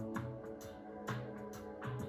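Gentle background music: held tones over a repeating low bass figure, with short notes about twice a second.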